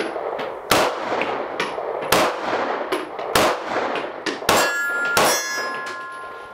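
Canik sfxRIVAL 9mm competition pistol fired five times, the shots about a second or more apart. The last two hit a steel target, which rings on after them and fades over a couple of seconds.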